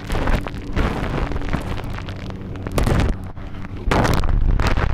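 Loud rumbling roar of heavy surf and whitewater, with wind buffeting the microphone, swelling louder about four seconds in.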